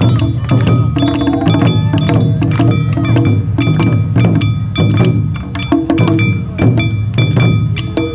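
Awa odori festival band playing live: barrel drums pound a brisk, steady beat while a metal kane gong rings over them in bright, sustained tones.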